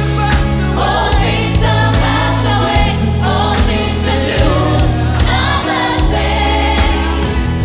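Church choir singing a gospel worship song with a live band: many voices over sustained bass notes and a steady beat of drum hits.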